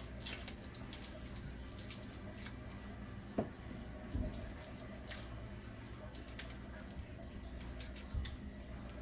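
Faint, scattered clicks and crackles of garlic cloves being handled at a kitchen counter, with a few soft knocks.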